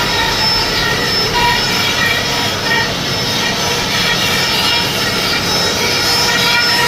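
CNC router running with a loud, steady mechanical noise and a faint whine that comes and goes.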